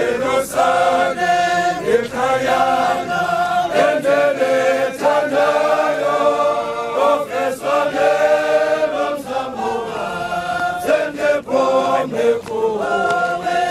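A group of men singing a Xhosa hymn together, unaccompanied and in harmony, in short held phrases.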